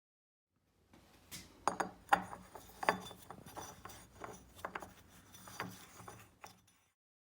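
Hard parts being handled, clinking and knocking against each other in a string of sharp strikes, roughly one or two a second, each with a short ring.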